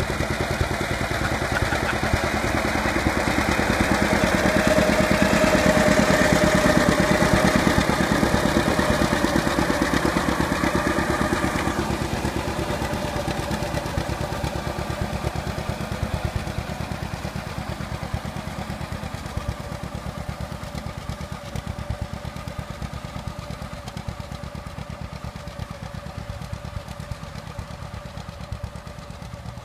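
1942 John Deere Model A tractor's two-cylinder engine running steadily under load as it pulls a disc harrow. It is loudest a few seconds in, then fades gradually as the tractor moves away.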